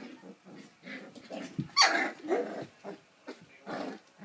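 Puppies play-fighting, with a string of small growls and one loud, high yap about two seconds in.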